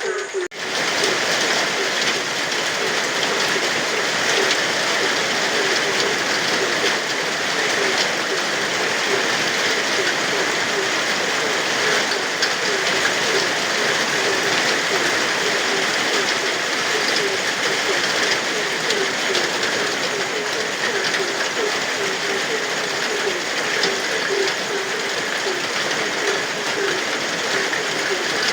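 Steady heavy rain with a chorus of frogs calling in short, rapidly repeated croaks. The sound drops out briefly just after the start, then runs on evenly.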